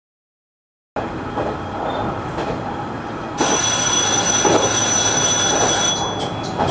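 JR Shikoku 1500 series diesel railcar running, heard from inside, with sound starting about a second in. The ATS (automatic train stop) warning bell starts ringing steadily about three seconds later. After about two and a half seconds it gives way to the repeating ATS chime, about three pulses a second, which in Japanese ATS-S practice follows the driver's acknowledgement of the warning.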